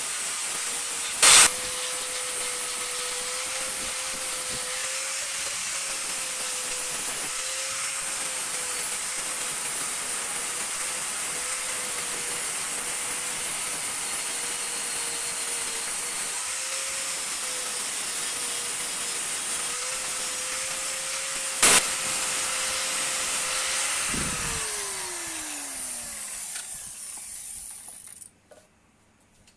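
Motor-driven power tool running with a steady hum and a hissing grind, with two sharp knocks, about a second in and again about 22 seconds in. About 24 seconds in it is switched off, and its hum sinks steadily in pitch as it spins down.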